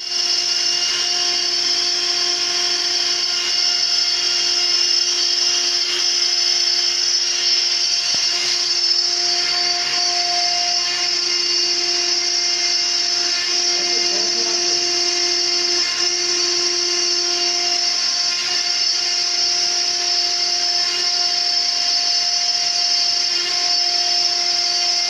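CNC router spindle motor, driven by a variable-frequency inverter and set to 24,000 rpm, running at steady high speed: a continuous high-pitched whine over a lower steady hum.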